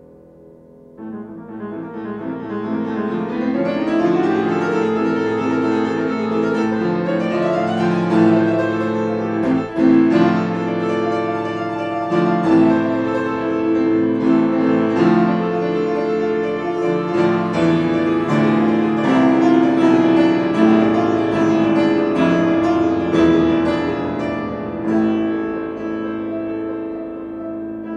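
Solo piano playing fast chromatic passagework, rising chromatic scale figures offset by descending arpeggios over a sustained bass, imitating wind. It comes in about a second in after a pause and swells over the next few seconds.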